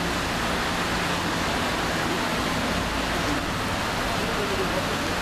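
Rain pouring down steadily in a thunderstorm: an even, continuous hiss.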